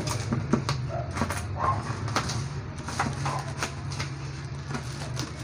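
Plastic parcel wrapping crinkling and crackling in irregular bursts as it is handled and pulled off a cardboard box by hand, over a steady low hum.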